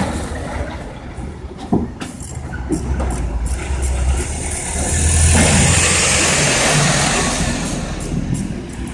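Motor vehicle traffic: a steady low engine rumble, with a vehicle passing that swells about halfway through and fades again.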